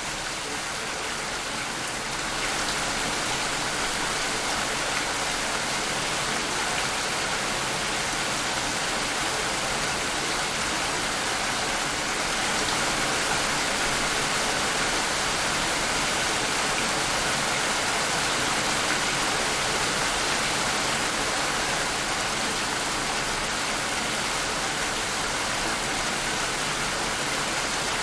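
Steady heavy rain, a dense even hiss of falling rain and drops hitting surfaces, slightly louder after about two seconds.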